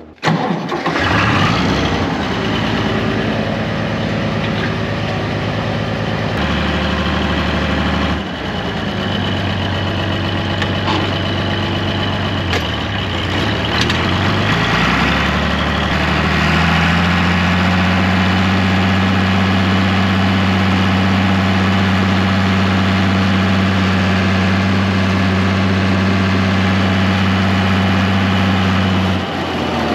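Tractor engine running close by, its speed dipping and rising again about halfway through, then held steady at higher revs before easing off near the end.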